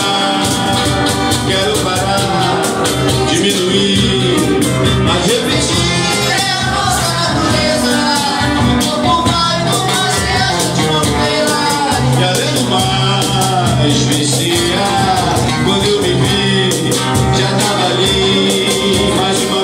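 Live acoustic music: a singer's voice carrying a melody over strummed acoustic guitars.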